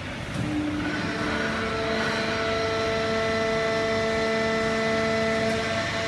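Hydraulic semi-automatic horizontal paper baling machine running: a steady mechanical hum with a whine of several held tones, which builds up over the first second or so and then holds steady.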